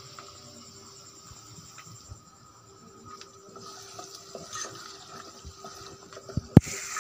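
Sliced onions being stirred with a spatula in hot ghee in a non-stick pot: faint scrapes and clicks over a low hiss. About six and a half seconds in there is one sharp knock, after which the frying sizzle grows louder.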